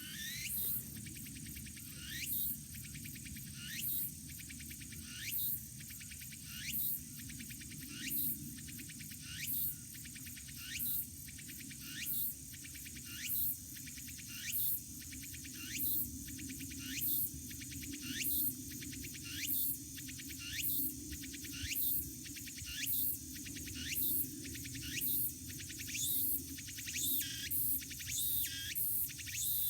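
Cicada calling in a repeating rhythm of short rising phrases over a steady high buzz. The phrases come about every second and a half at first and quicken to less than a second apart toward the end.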